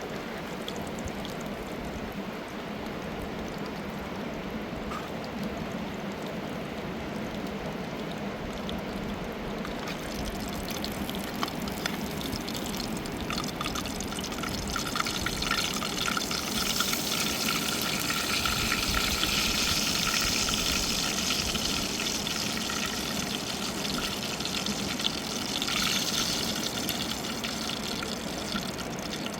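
Running water of a mountain river, a steady rush that grows louder and brighter about a third of the way in.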